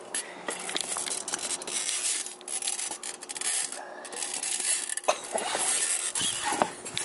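Rubbing and scraping handling noise as the camera is carried up a metal ladder onto a camper trailer's roof, with a few light knocks along the way.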